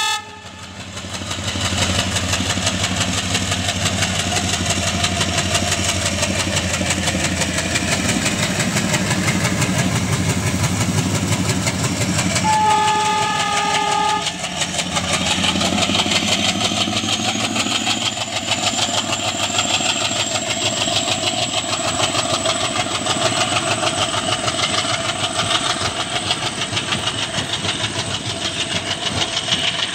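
WDM3D diesel locomotive's ALCO 16-cylinder engine chugging hard as it pulls the train away and passes close by, with a short horn blast of about a second and a half near the middle. After it, the coaches roll past with rhythmic wheel clatter.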